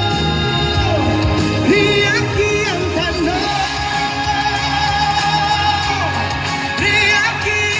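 Man singing live into a microphone over a backing track, with wavering held notes about two seconds in and again near the end.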